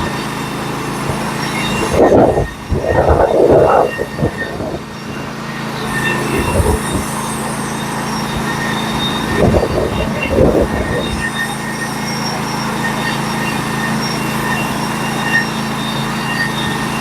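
Norwood HD36v2 portable band sawmill running steadily under power, its engine hum and the band cutting making a constant noise, with two short louder scraping stretches about two seconds and ten seconds in.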